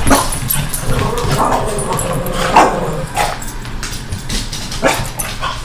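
A French Bulldog and a Boston Terrier playing, giving several short yips and barks and a drawn-out whine.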